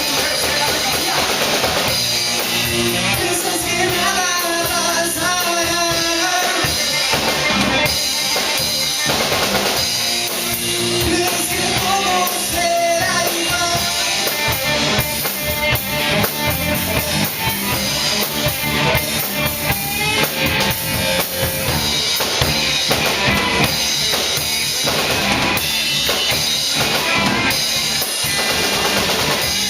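Live band playing a hip hop number: drum kit with bass drum and snare keeping a steady beat under electric guitar and bass guitar.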